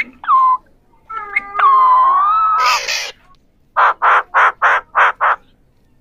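Alexandrine (Pahari) parakeets calling: a short falling whistle, a long wavering whistled note that breaks into a harsh screech, then a quick run of six harsh squawks at about four a second.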